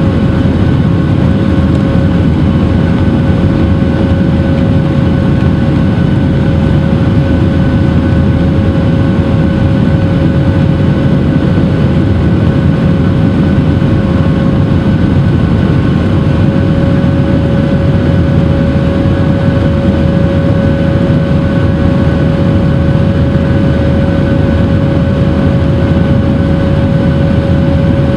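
Cabin noise of a Boeing 737-800 climbing after takeoff: its CFM56-7B turbofans run steadily over a loud rush of air, with a constant mid-pitched whine.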